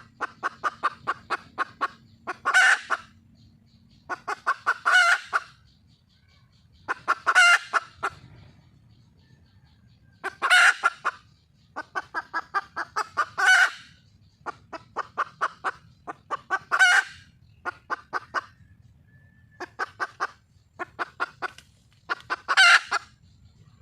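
Red junglefowl hen calling for a mate: runs of quick clucks, about four a second, each ending in a louder, drawn-out squawk, repeated every few seconds.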